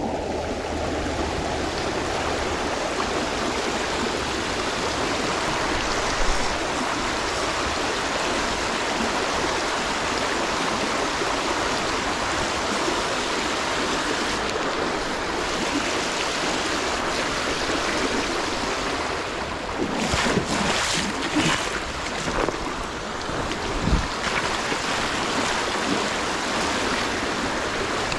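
Steady rush of flowing river water. About two-thirds through come a few short knocks and rustles, then a single thump.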